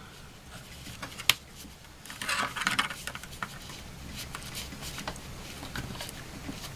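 Small clicks and scrapes of a tool and fingers prying at a stubborn part inside an opened smartphone. One sharp click about a second in, and a spell of scratching around two to three seconds in.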